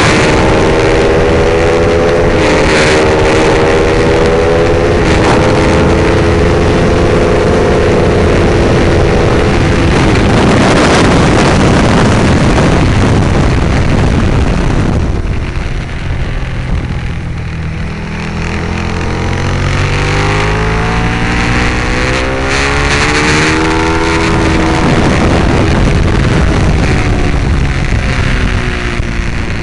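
Ducati 848's L-twin engine running hard with wind rush on the microphone, its pitch climbing and stepping up through the gears over the first ten seconds. About halfway through the engine note and level drop off, then the revs climb again with rising pitch.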